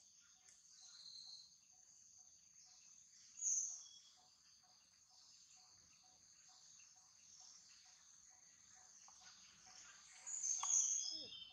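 Steady high-pitched drone of a chorus of insects, with soft regular ticking about three times a second. A brief louder chirp comes about three and a half seconds in, and a longer one with a falling note comes near the end.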